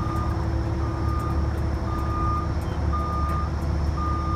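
Backup alarm beeping steadily, about one half-second beep a second, over the steady low running of a diesel engine, most likely the CAT 305E2 mini excavator's, as the machine moves.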